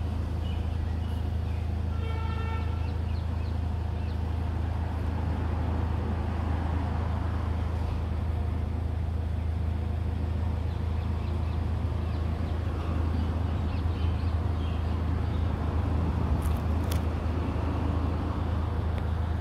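Steady low background rumble of road traffic, with a brief high tone about two seconds in.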